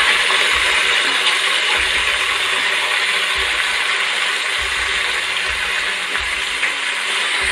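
Raw mutton sizzling in hot ghee in a metal pot as a steel ladle stirs and scrapes the pieces against the pot, a loud steady hiss with occasional low knocks. This is the first searing stage of browning the meat.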